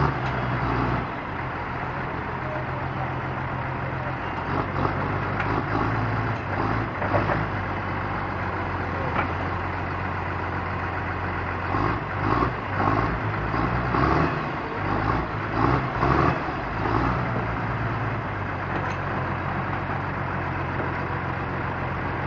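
John Deere 748G-II grapple skidder's diesel engine idling steadily. A few short, louder bursts of noise come over it about halfway through.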